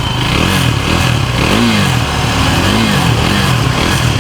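KTM Duke 390's single-cylinder engine revved several times, the revs rising and falling with each blip of the throttle. With its timing chain freshly replaced, it runs silent, without the noise it used to make around 4000 rpm.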